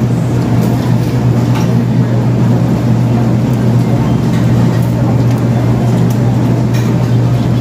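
Restaurant room noise: a steady low hum with a constant murmur underneath, and a few faint clicks of eating and handling food.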